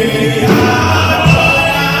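Live gospel band playing during a soundcheck, with voices singing together over a steady bass line.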